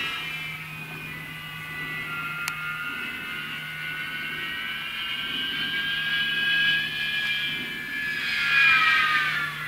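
Electric RC glider's Hacker B50 motor and 16x16 propeller whining overhead, the pitch creeping up, then dropping as the model passes by near the end.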